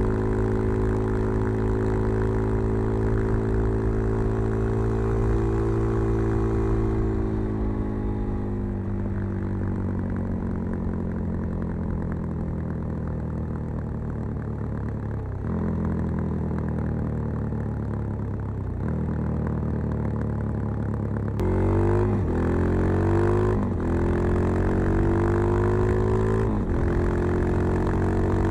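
Suzuki DR-Z 400 supermoto's single-cylinder four-stroke engine, breathing through a Keihin FCR 39 carburettor and a LeoVince V3 silencer with its dB-killer fitted. For about twenty seconds the revs sink slowly as the bike rolls off the throttle. Then the throttle opens hard and the revs climb in quick sweeps, with a sudden drop at each gear change, about three times.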